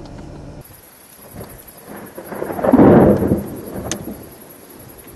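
Thunder from a nearby thunderstorm: a rumble that swells about two seconds in, peaks near the middle and fades away, with a brief sharp crack as it dies down.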